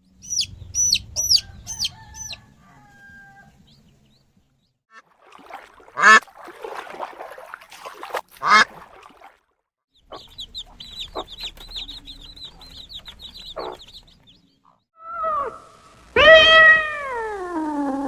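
Farm poultry calling in a string of short clips. High chirps come first, then two sharp squawks, a run of rapid high peeps, and a loud call that falls in pitch near the end.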